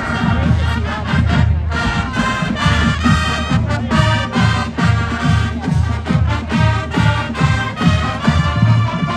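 College marching band playing, with brass over a steady drum beat of about two strokes a second.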